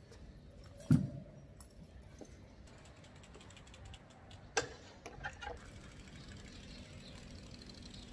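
Bicycle rear freewheel hub ticking in a fast run of clicks as the bike is wheeled, with a single loud thump about a second in and a sharp knock a little past halfway.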